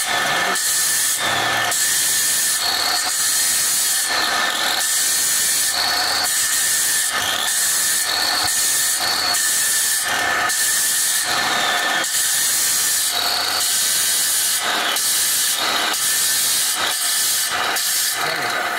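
Handheld electric marble cutter wet-cutting along the edge of a marble slab, water poured onto its blade: a steady high whine over a loud hiss that swells and eases about once a second.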